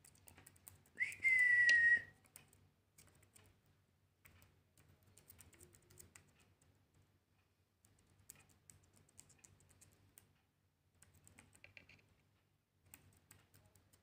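A cockatiel gives one loud whistle about a second in, a note that slides down slightly and is held for about a second. After it come scattered faint light ticks, the bird's claws tapping on a hard tabletop as it walks.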